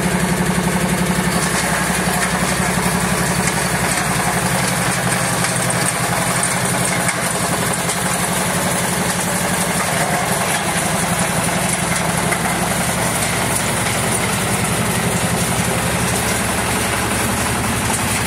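Two-wheel walking tractor's single-cylinder diesel engine running steadily while it drives a rotary tiller through the soil.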